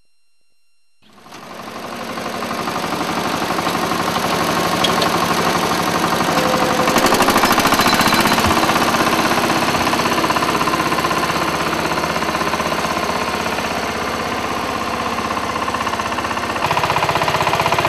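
A small engine running steadily with a rapid even pulsing, fading in after a second of silence and growing fuller near the end. It is most likely the motor of a walk-behind farm machine.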